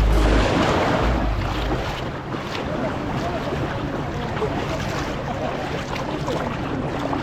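Background music ends in the first two seconds, leaving a steady rush of wind and water noise, with wind on the microphone.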